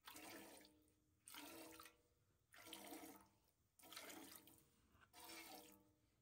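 Hand-milking a cow: squirts of milk hissing into a stainless steel pail, five faint squirts about a second and a quarter apart, each with a slight ring from the pail.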